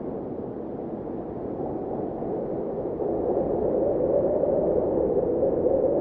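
Blizzard wind howling, a low hollow moan that grows louder about halfway through.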